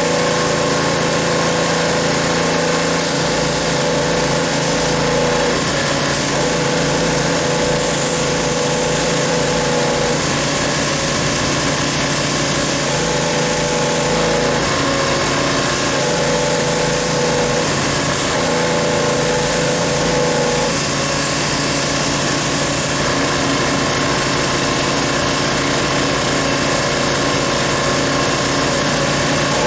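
Pressure washer running steadily, its motor hum under the hiss of the water spray as the tractor is washed down.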